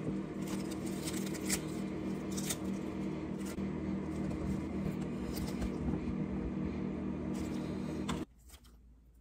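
Iceberg lettuce leaves torn and crumpled by hand and dropped into a ceramic bowl: a run of crisp rustles and crackles. Under them runs a steady appliance hum that cuts off about eight seconds in.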